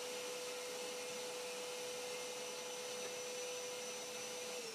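Small benchtop disc sander running steadily with a held motor hum. Near the end it is switched off, and its pitch starts to fall as the disc winds down.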